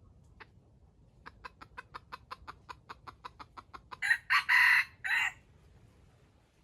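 Junglefowl rooster giving a quick, even run of about five clucks a second, then a loud, short crow broken into three parts.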